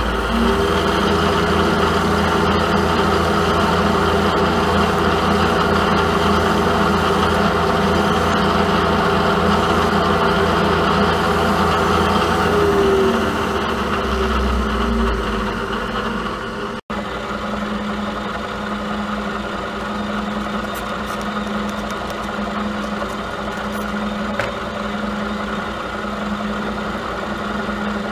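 Milling machine running while drilling a hole in a steel collar for an 8-32 tap: a steady motor and spindle hum. After a break about two-thirds through, the machine runs on with a low drone that pulses about once a second.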